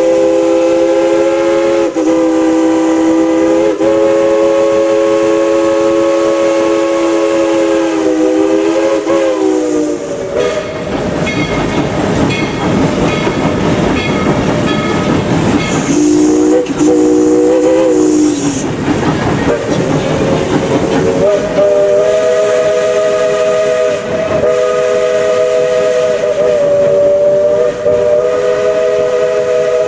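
Steam locomotive whistle sounding a chord of several notes. There is one long blast of about ten seconds, a short blast about halfway through, and another long blast held from about two-thirds in. Between the blasts there is a loud rushing noise.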